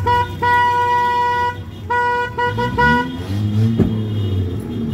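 A vehicle horn honking: a quick run of short toots, one long blast of about a second, then more short toots, over the steady rumble of engines. In the last seconds a lower sound rises and falls in pitch a few times.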